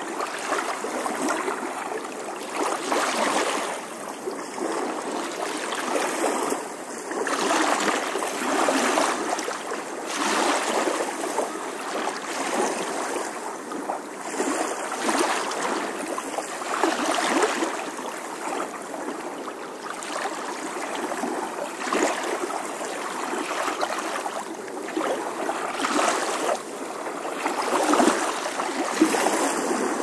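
Flowing water rushing and splashing, swelling and easing every second or two.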